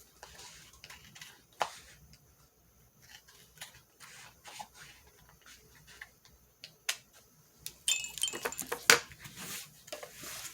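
Light scattered clicks and handling noises of desk crafting, then near the end a louder burst of clatter as things are knocked off the back of a desk and fall.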